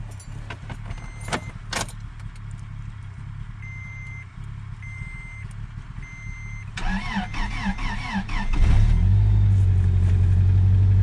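Cold start of a Toyota pickup: key clicks in the ignition and a few short dash chimes, then the starter cranks for about two seconds. The engine catches at once and settles into a steady idle.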